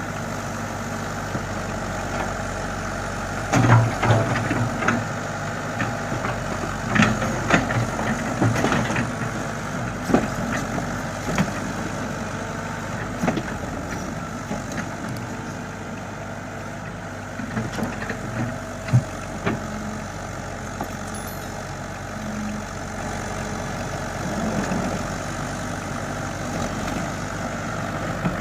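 Komatsu excavator's diesel engine running steadily while it digs, with several sharp knocks and clunks from the working machine in the first third and a couple more later.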